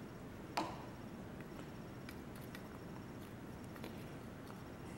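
Small spoon clicking and scraping against a baking powder tin and a plastic toy submarine as powder is scooped into the sub. One sharp click about half a second in, then faint scattered ticks and scrapes.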